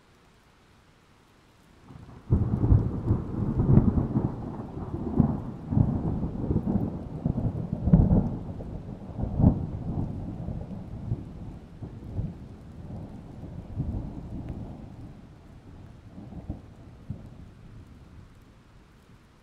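A long low rumble that starts suddenly about two seconds in, swells in a series of irregular peaks and slowly dies away over about fifteen seconds.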